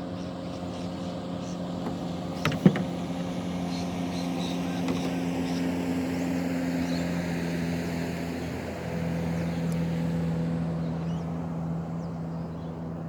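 Motorboat engine droning steadily as it goes by, its pitch dropping a little about two-thirds of the way through. A couple of sharp knocks stand out about two and a half seconds in.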